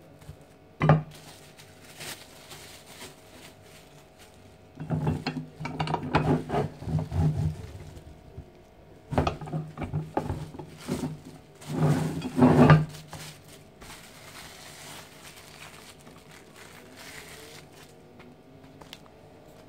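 Cast-iron tortilla press clanking as its plates and lever handle are moved and closed: a sharp knock about a second in, then two long bursts of clattering metal knocks. Softer rustling of cling film follows near the end.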